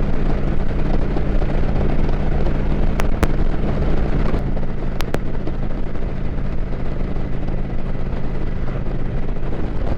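Kawasaki Vulcan 900's V-twin engine running steadily at road speed, with wind rushing over the microphone. The engine note shifts slightly about four seconds in.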